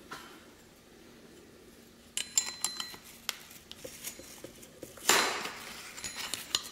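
Metal clinks and clicks of a flat spanner wrench on an angle grinder's flange nut as a diamond cup wheel is tightened on. The clicks come in a cluster about two seconds in and again near the end, with a brief scraping rush about five seconds in.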